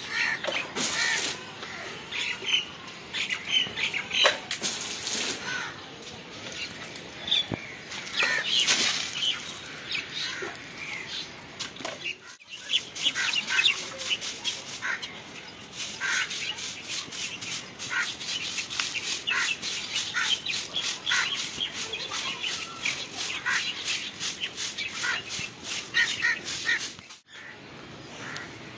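Water flung from a mug splashing onto packed earth a few times, then a grass broom sweeping the dirt ground in quick, even, repeated strokes.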